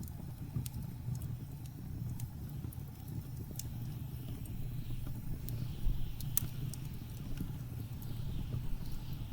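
Wood fire crackling, with scattered sharp pops, the loudest about two-thirds of the way through, over a steady low rumble of blizzard wind.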